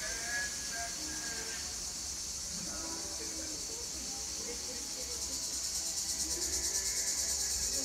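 Steady high-pitched chorus of insects, growing louder and pulsing rapidly from about five seconds in.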